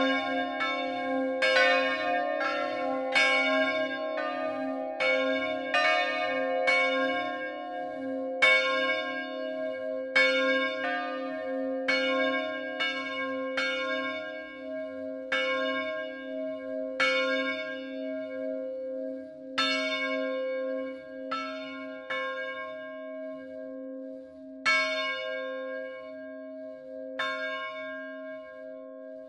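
Peal of three bronze church bells (De Poli foundry, tuned to a major scale) swung electrically in the Friulian style, their clappers striking over and over so the strokes overlap and ring on. The strokes come quickly at first and grow sparser and fainter toward the end.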